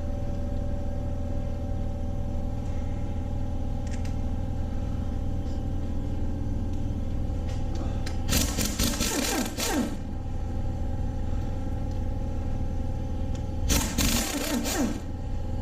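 Pneumatic impact wrench fired in two bursts of about a second and a half each, about eight seconds in and again near the end, over a steady motor hum.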